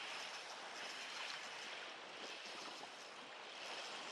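Steady wash of wind-driven choppy water around a kayak, an even rushing noise that swells slightly now and then.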